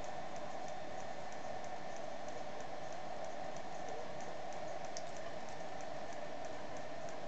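Steady hum and hiss at an even level, with faint, fairly regular high ticks several times a second.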